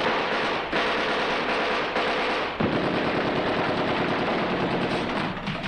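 Machine-gun fire, continuous and loud with no break.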